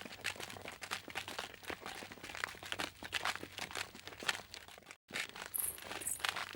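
Footsteps crunching on a loose, crunchy surface: a dense run of quick, irregular crunches. About five seconds in it cuts off briefly and another footstep effect begins, with bright jingling on the steps.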